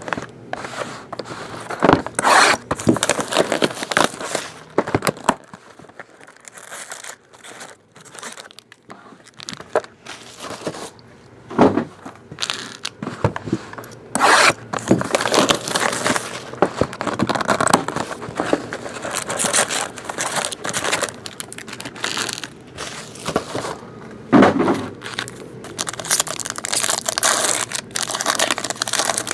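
Shrink-wrap being torn off sealed trading-card boxes and a card pack ripped open: irregular bursts of plastic tearing and crinkling, with cardboard scraping and handling.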